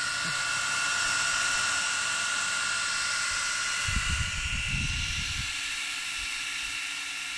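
Cooling fans of the aftermarket Diginow supercharger units on a Zero DSR electric motorcycle, running steadily with an even hiss and a high whine while the bike charges. A few low bumps come in about four seconds in.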